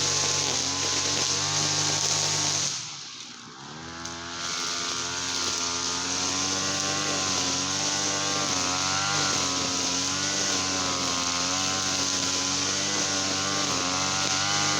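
Small TL33-type two-stroke petrol engine running steadily. About three seconds in it briefly drops away, then picks back up with a rise in pitch and settles into a steady run again.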